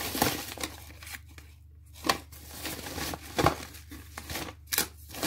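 Rustling and crinkling of parcel packaging being handled, including a brown padded envelope, with a few short sharp crackles about two, three and a half and nearly five seconds in.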